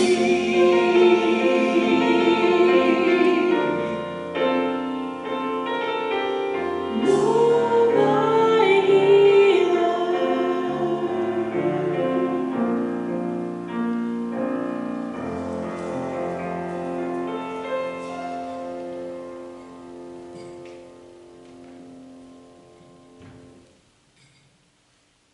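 Live church worship band ending a song: vocalists sing the final lines over the band, then the instruments hold a last chord that fades out and stops near the end.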